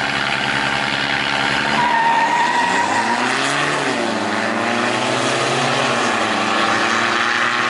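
Two diesel SUVs, one a Mitsubishi Pajero Sport, launching hard off a drag strip start line. The engines hold steady revs at first, then pull away about two seconds in, with the pitch rising and bending through the gear changes. A brief high whine comes near the launch.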